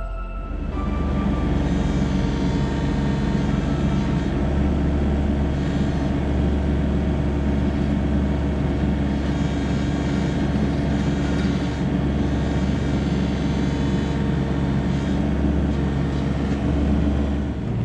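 Komatsu PC16 mini excavator's diesel engine running steadily while the arm swings and the bucket starts digging into the ground.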